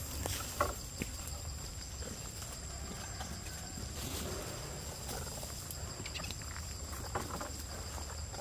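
Forest ambience: a steady high-pitched insect drone, with scattered crackles and rustles of dry leaves as macaques move over the leaf litter, a few sharper crackles about half a second in and again late on.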